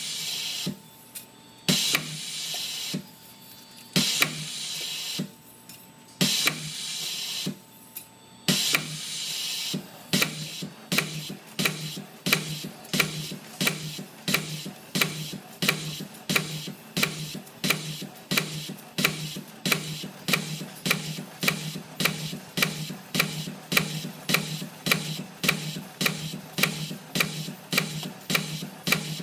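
CNC piston ring coiling machine feeding wire through its rollers and forming rings. For about the first ten seconds it runs in hissing strokes roughly every two seconds with a sharp click between them and a faint steady whine in the pauses. After that it settles into a fast regular cycle of sharp clicks about twice a second over a steady low hum.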